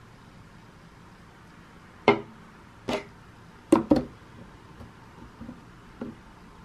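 Hard objects knocked or set down, about five sharp knocks with short ringing tails. One comes about two seconds in, one just before three seconds, a close pair near four seconds, and a fainter one near six seconds.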